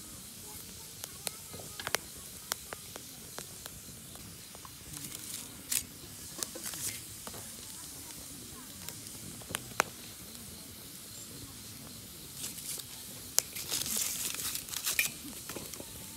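Split firewood burning in a metal fire pit: a steady hiss of flames with sharp crackles and pops throughout, coming in quick clusters about a third of the way in and again near the end.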